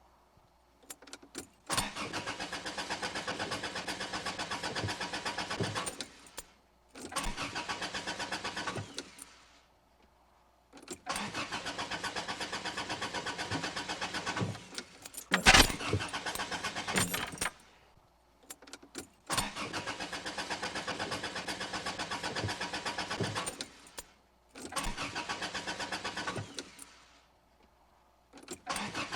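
Car engine being cranked by its starter in about five separate tries of two to four seconds each, with short pauses between. It turns over fast and evenly but never catches, a car that won't start. About halfway through comes one sharp, loud knock, the loudest sound.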